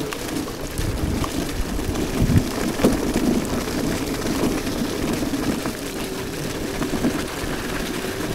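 iScooter iX5 off-road electric scooter riding over a gravel and leaf-strewn trail: a steady rush of tyre noise and rattling over the stones, with a couple of sharper knocks from bumps about two and a half and three seconds in.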